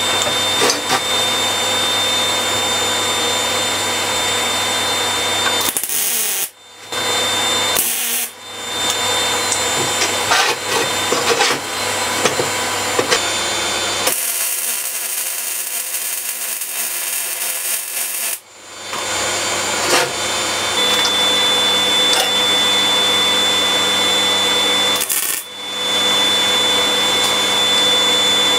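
Electric jigsaw with a metal-cutting blade sawing thin sheet steel: a steady motor whine with the blade's chatter, in several takes that break off abruptly. About halfway through comes a few seconds of the hissing crackle of MIG welding.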